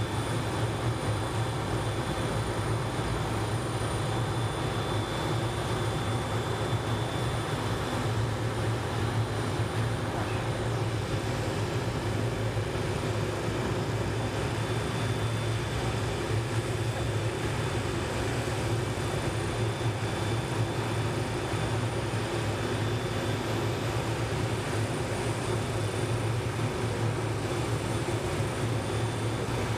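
MD 500-series police helicopter running on the ground before lift-off, its turbine engine and rotor giving a steady sound with a thin high whine over it.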